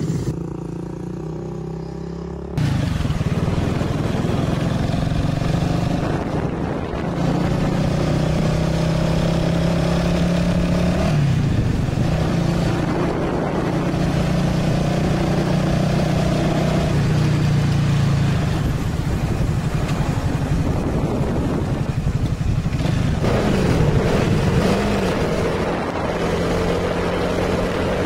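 Honda CBR250 motorcycle engine running while riding, heard with heavy wind rush on the microphone. The engine note rises as the bike accelerates and drops back at each gear change, several times over. The sound is quieter for the first couple of seconds, then jumps up.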